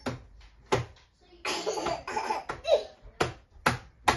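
A toddler's hand slapping a plastic high-chair tray, about five sharp slaps, with a burst of breathy child's laughter in the middle.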